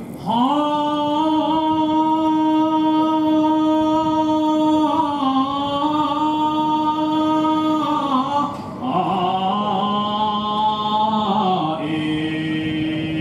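Sumo jinku sung solo and unaccompanied by a man: one long drawn-out note with slow wavering ornaments for about eight seconds, then a lower phrase, then another long held note near the end.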